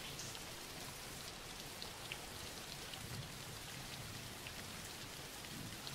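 Soft, steady rain background, an even hiss with a few faint scattered drop ticks.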